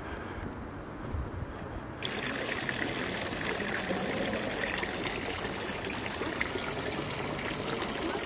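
Fountain water splashing and trickling steadily, starting abruptly about two seconds in. Before that there is only a faint low background rumble.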